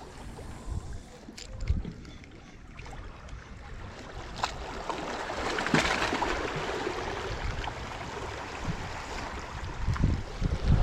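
Wind noise on the microphone over a wash of water, swelling and easing, with a few sharp clicks.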